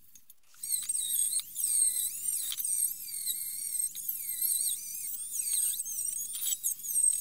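Handheld rotary tool with a steel wire brush bit running against the metal filler neck of a motorcycle fuel tank, scouring off rust. It is a high, loud whine whose pitch wavers up and down, starting about half a second in.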